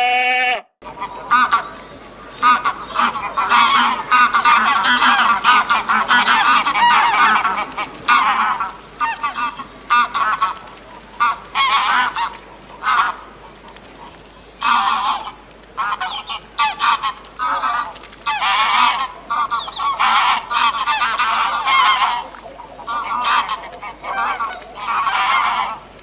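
A sheep's bleat cut off in the first second, then waterfowl honking in repeated rough bursts, some in long runs and some short, with brief pauses between.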